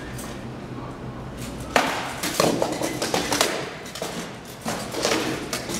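Armored combat with rattan weapons: a run of sharp knocks and clatter of weapons striking shield and armor, starting suddenly about two seconds in and coming again near the end.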